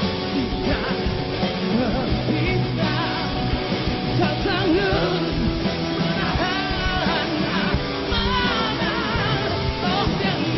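Rock band playing a song at full volume, with a lead melody bending and wavering in pitch over the band.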